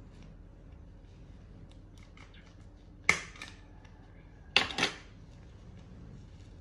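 Nail clippers snipping a baby monkey's toenails: one sharp click about three seconds in, then a quick double click about a second and a half later.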